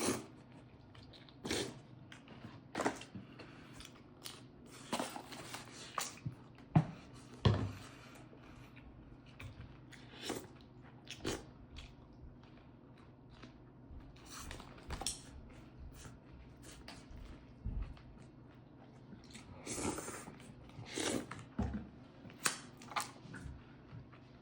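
Close-up eating sounds of a person having pho: short, separate bursts of noodle slurping and chewing every second or two.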